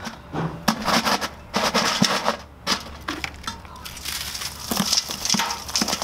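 Broken aircrete blocks knocking and scraping as they are dropped and pressed into a metal bucket, with a gritty crackle of crumbling aircrete under the hands. The knocks come irregularly, several a second at times.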